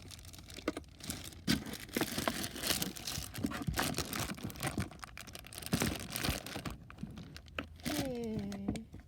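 Hands rummaging through a container of plastic fidget toys: irregular rustling, crinkling and clicking as the toys are shuffled and knock against each other.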